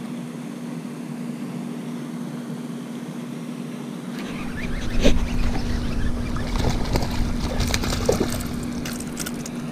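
A hooked largemouth bass splashing and thrashing at the water's surface near the bank as it is reeled in, with a knock about halfway through and a run of sharp water splashes in the last few seconds.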